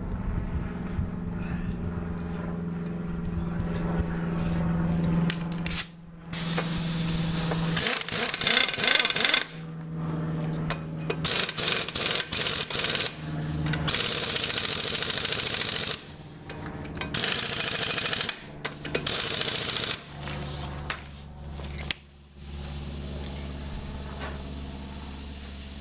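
Air compressor motor running with a steady hum, and from about six seconds in, repeated loud bursts from a pneumatic air tool, some choppy and hammering, starting and stopping every second or two.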